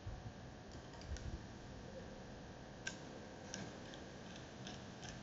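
Light handling knocks and a few scattered sharp clicks of small metal parts as an airless paint spray gun and a fitting are worked together by hand.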